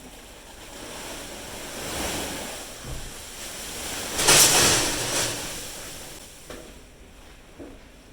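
A rushing noise that swells to a peak about four seconds in and then fades away, with a couple of low thumps before the peak.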